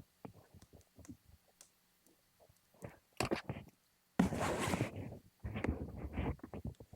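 A series of light clicks and ticks, then louder rustling and scraping noise in uneven bursts from about three seconds in.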